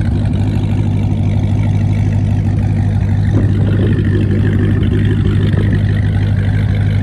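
Dodge Challenger SRT Hellcat's supercharged 6.2-litre HEMI V8 idling steadily.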